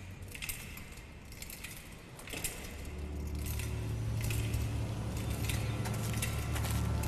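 Scattered sharp clicks and crackles, with a low drone swelling in about two and a half seconds in and faint held tones above it: a soundtrack transition leading into music.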